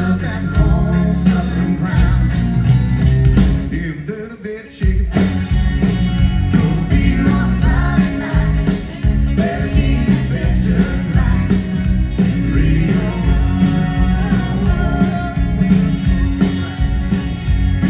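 Live country band playing, with acoustic guitar, fiddle, electric bass and drums. The band drops nearly out for a moment about four seconds in, then comes back in full.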